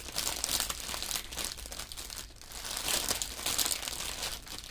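Plastic packaging of a diamond painting kit crinkling and rustling as it is handled, with a brief lull a little past halfway.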